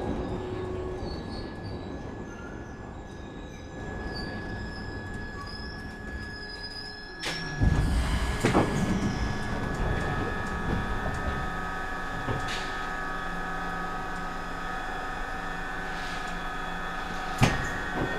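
Glasgow Subway train running. A couple of sharp clunks come about seven seconds in, and then the rumble grows louder. From there a steady high wheel squeal rings on, and one more clunk comes near the end.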